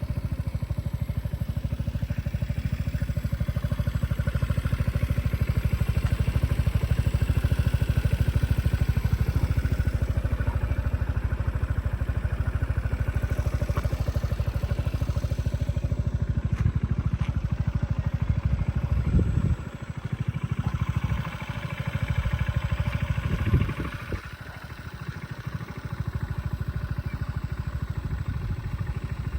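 Piaggio Beverly 400 S scooter's single-cylinder engine idling with a rapid, even exhaust pulse, blipped briefly twice about two-thirds of the way through, each blip followed by a dip back to a quieter idle.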